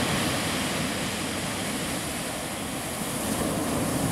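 Ocean surf breaking and washing up the beach: a steady rush of waves that swells slightly near the end.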